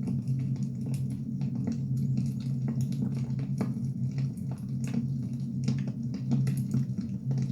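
Firewood burning: irregular crackles and pops over a steady low rumble.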